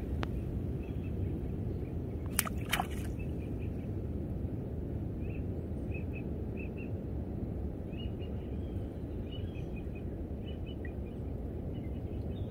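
Small birds chirping in short, scattered calls over a steady low outdoor rumble, with two sharp clicks a little over two seconds in.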